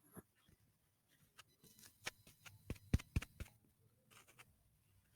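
Faint handling noises: a scattered series of small clicks and taps, the sharpest about three seconds in.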